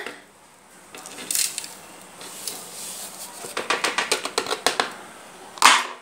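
Granulated sugar poured from a cup into a plastic blender jar: a grainy hiss with many small ticks, thickest about three and a half seconds in, and a sharp short clack near the end.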